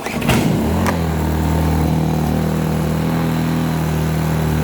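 Small engine of a Blackridge BRG800 800-watt inverter generator, running on stale fuel. It comes in abruptly, is uneven for under a second, then runs at a steady, even pitch.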